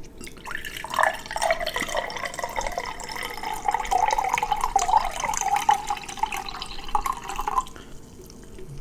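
Liquid trickling and gurgling close to the microphone for about six seconds, stopping shortly before the end.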